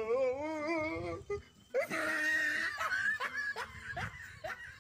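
A person laughing: a long wavering laugh at first, then a string of short laughs in the second half.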